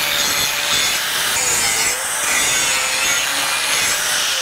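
Angle grinder with a hard grinding disc working along a forged steel knife blank, grinding off the forge scale: a steady, hissing grind over the motor's whine, which dips slightly a couple of times as the disc is pressed in.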